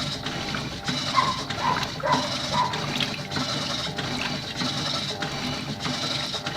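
Electrolux top-loading washing machine in turbo agitation: water churning, with a short pitched whine or squeak repeating a little over twice a second in time with the agitator's strokes.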